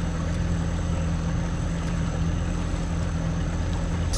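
Boat's outboard motor running steadily at low speed, a constant low engine drone. A brief knock of a hand on the camera near the end.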